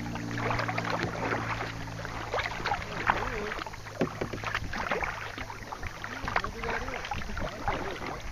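Kayak paddling: irregular splashes and drips of water from the paddle blades. A steady low hum under it fades out in the first few seconds.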